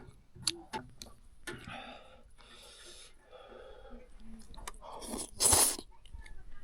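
A person eating Tibetan noodles and flatbread: chewing with small crunches and mouth clicks, and one louder noisy burst about five and a half seconds in.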